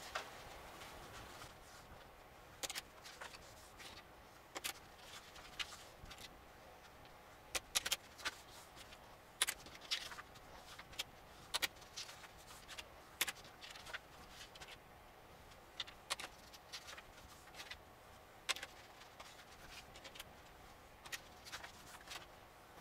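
Paper pages of a sewn notebook insert being flipped up and creased by hand and with a bone folder: short, soft paper rustles and crackles at irregular intervals of a second or two, over quiet room tone.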